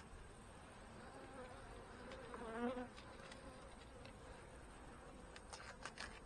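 Honey bees buzzing around an open hive as a faint steady hum. About two and a half seconds in, one bee's buzz passes close, louder and wavering in pitch. A few faint sharp clicks come near the end.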